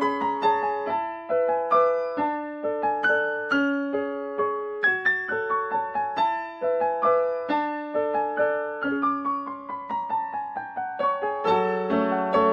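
Background instrumental music: a piano melody of struck notes that ring and fade, several a second, with lower notes joining near the end.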